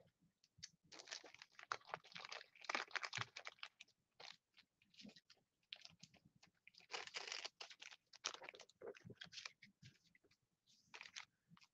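Faint, irregular crinkling and crunching of a foil trading-card pack wrapper and cards being handled, in short clusters of rustles with quiet gaps between.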